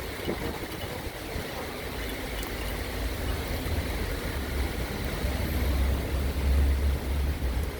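Wind and rain noise, with the wind rumbling on the microphone and growing stronger about five to seven seconds in.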